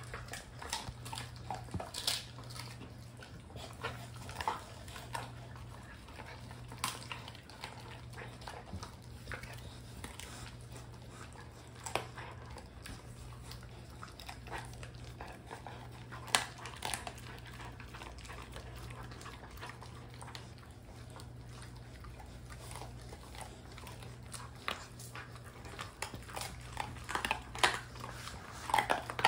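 Two Rottweiler puppies chewing duck feet, with irregular sharp crunches of bone and skin, coming thicker near the end. A steady low hum runs underneath.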